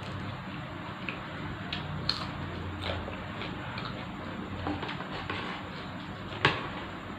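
Someone eating glass noodle soup: soft eating noises with scattered small clicks, the loudest about six and a half seconds in.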